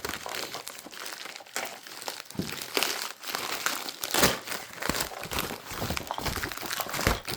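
Packing material crinkling and rustling as it is handled and pulled out of an opened shipping box, with several louder crackles along the way.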